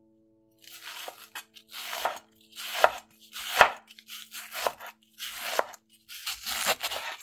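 Chef's knife shredding half a head of white cabbage on a bamboo cutting board: about one stroke a second, each a crunchy slice through the leaves ending in a knock of the blade on the board.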